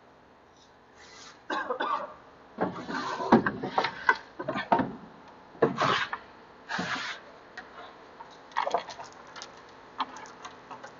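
Cardboard box full of wood shavings dragged and scraped out from under the machine, in irregular rubbing and scraping bursts with sawdust shifting, followed by a few light knocks near the end.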